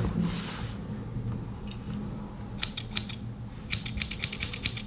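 Small spring-loaded scissors of a Victorinox Alox Swiss Army knife being worked open and shut, giving sharp metal clicks: a few scattered at first, then a quick run of about eight in a second near the end. A short rustle comes just at the start.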